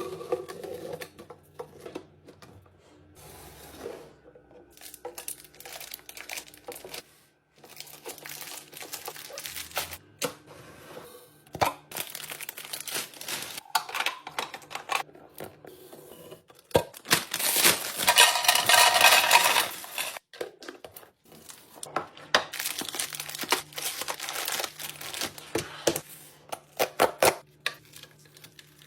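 Plastic grocery packaging crinkling and tearing as it is opened and handled, with light clicks and knocks of items and containers being set down. A louder stretch of continuous rustling comes a little past the middle.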